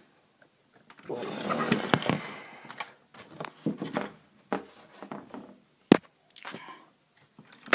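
A child's rough growling voice for a troll, followed by several light knocks of a plastic toy figure stomping on a tabletop, the sharpest one near the end.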